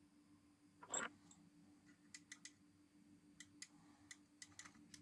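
Faint handling sounds: a soft knock about a second in, then a scattered run of about ten light, sharp clicks, under a faint steady hum.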